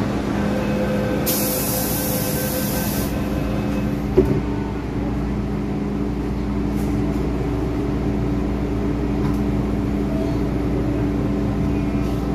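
Inside an MTR M-Train standing at the platform: steady hum of the train's onboard equipment, a burst of air hiss lasting about two seconds starting about a second in, and a single thump about four seconds in.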